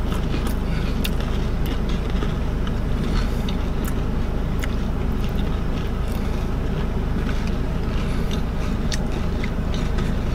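Steady low rumble of a car's cabin noise, with faint scattered crunches of Oreo cookies being chewed.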